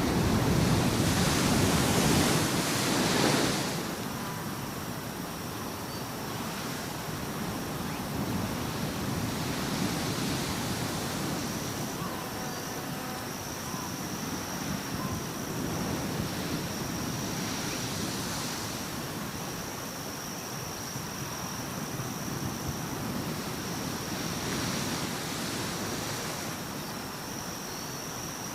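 Waves washing in, a steady rush that swells loudest in the first three seconds and then rises and falls again every seven or eight seconds. A faint, steady high-pitched whine sits above it from about the middle on.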